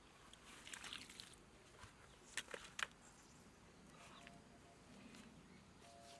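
Quiet scene: brief light splashing of water, then two sharp knocks about half a second apart, as a freshly caught fish is dropped into a plastic basin of water and thrashes against it.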